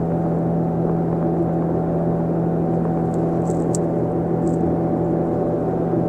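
Boat motor running at a steady speed, a constant even hum with no change in pitch.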